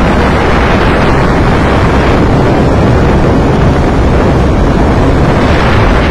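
Ford 3600 tractor's engine running steadily as the tractor drives along at road speed, with wind buffeting the microphone.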